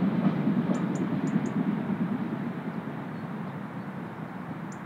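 Steam train hauled by LMS Black Five 44871 rumbling away into the distance, its sound fading steadily after passing. A few short high chirps come about a second in and again near the end.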